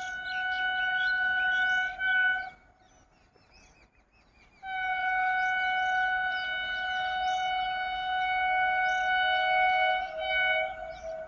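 Vande Bharat Express train horn sounding two long blasts: the first ends about two and a half seconds in, and after a short gap the second is held for about seven seconds, with a second, lower note joining in its later part. Birds chirp faintly in the background.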